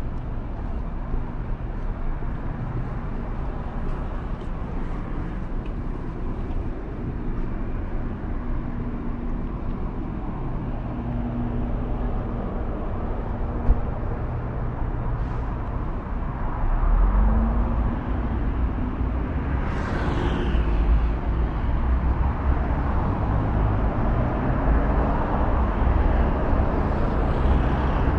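Traffic on a city street: vehicle engines running with steady road noise, growing louder past the middle as a vehicle's engine note rises. A single sharp click about halfway through.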